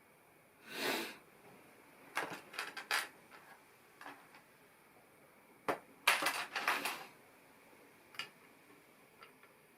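Plastic LEGO pieces being handled and pressed together: a short rustle about a second in, then two bursts of clicking and clattering, around two and six seconds in, and a few lone clicks near the end.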